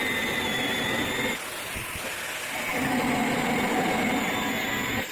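Angle grinder with a cutting disc running and cutting through a corroded stainless-steel bolt on a washing machine drum's spider arm. Its high whine drops to a lower pitch about a second and a half in as the disc bites, over a steady hiss.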